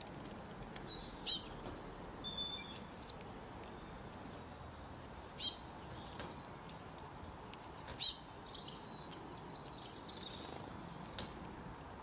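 Small songbird calling: three quick bursts of four or five high, downward-slurred notes, with fainter twittering between and after them.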